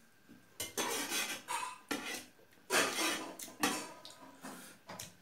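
Metal spoon scraping and clinking against a steel plate of rice, in a run of short, uneven clatters.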